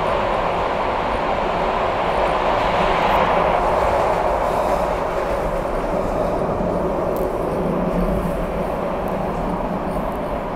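SEPTA Broad Street Line subway train running at speed, heard from inside the car as a steady rail noise that grows a little quieter toward the end.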